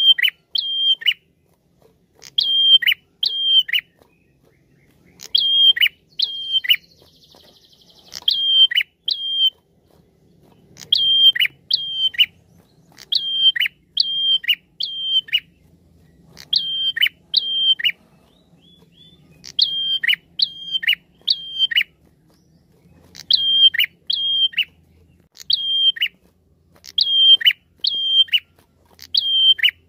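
Caged prenjak calling: sharp, high notes in quick groups of two or three, each note dropping in pitch, the groups repeated every couple of seconds. This is the female's call to a male, used as a lure call.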